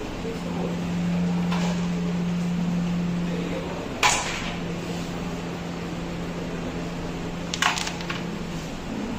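Carrom striker flicked into the coins on a wooden carrom board: one sharp click about four seconds in, and a quick cluster of clicks as coins knock together near the end. A steady low hum runs underneath.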